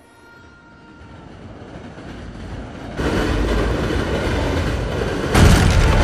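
Film sound design: a deep rumbling noise that swells steadily louder, jumps up about three seconds in, and jumps louder again a little after five seconds.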